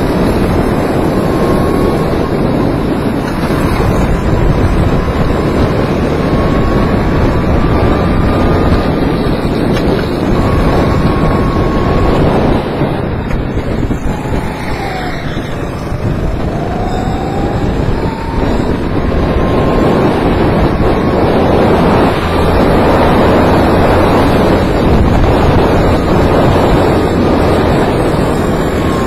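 Go-kart engine running hard, with heavy wind rushing over the microphone. Its whine climbs slowly on the straights, drops in a corner about halfway through, then rises again.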